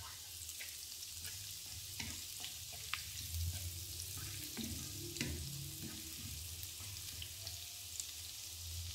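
Chopped spring onion whites, garlic and ginger sizzling in sesame oil in a nonstick pan, stirred with a wooden spatula that clicks and scrapes against the pan now and then. A steady low hum runs underneath.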